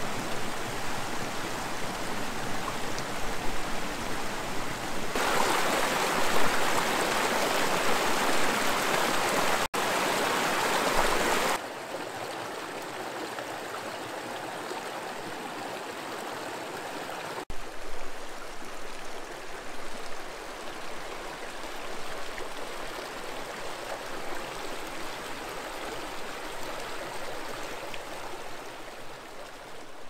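Shallow rocky desert creek, running with monsoon runoff, rushing and splashing over boulders in a steady roar of water. It grows louder about five seconds in, drops back about eleven seconds in, and fades away at the end.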